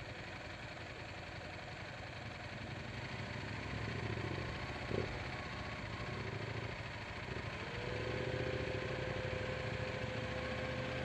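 Motorcycle engine idling, getting louder about four seconds in, with one sharp click about five seconds in and a steady whine that rises and then holds near the end.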